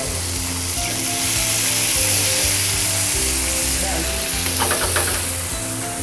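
Butter, garlic and blanched vegetables (broccoli, mushrooms, green beans) sizzling steadily in a hot steel frying pan as they are sautéed and stirred with a spatula.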